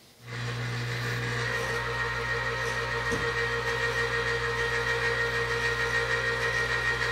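Electric wire-rope hoist (440/880 lb rated) running as it winds in its cable under load, lifting the front end of a zero-turn mower, about 138 lb. A steady electric hum with a fainter high whine, starting just after the start and stopping near the end.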